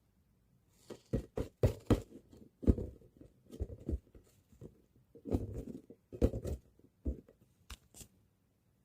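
A ball being bounced and handled: a run of irregular thuds and taps, starting about a second in and stopping shortly before the end.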